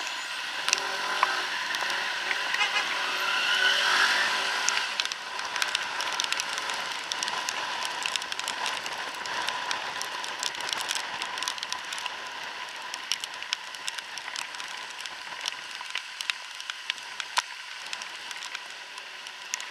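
Riding a Suzuki Address 110 scooter through slow traffic in the rain: a steady rush of road and air noise with the scooter's single-cylinder engine, which picks up briefly about three seconds in. From about five seconds on, frequent sharp ticks of raindrops striking the camera.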